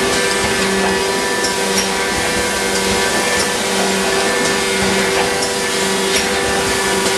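Meurer automatic tray packer dry cycling, running without product: a steady machine hum with a low tone that comes and goes about every two-thirds of a second, and scattered light clicks.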